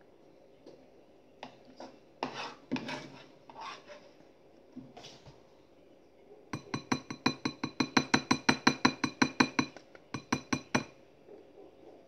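Metal serving spoon clinking and scraping against a frying pan a few times, then a quick, even run of about twenty ringing clinks, around five a second, that stops about two-thirds of the way through.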